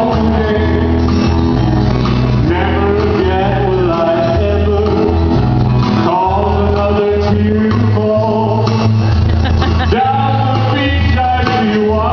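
Live country band playing: a male lead voice singing over acoustic and electric guitars, with bass notes moving underneath, heard through a stage PA.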